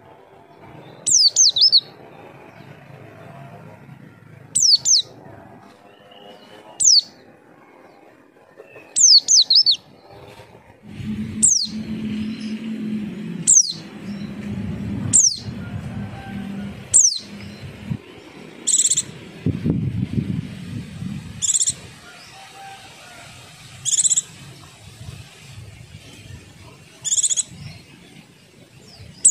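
White-eye (pleci) giving short, sharp, high calls that fall in pitch, repeated about every two seconds. This is the lure call used to draw other white-eyes into answering. From about 11 s a low rumbling background runs under the calls.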